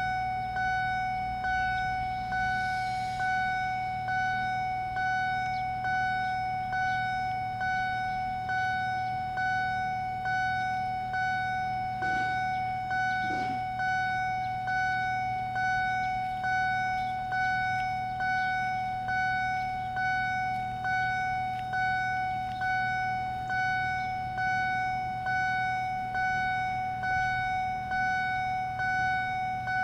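Level crossing warning bell ringing steadily, a single electronic tone repeating a little over once a second: the crossing's warning that a train is approaching while the barriers are down.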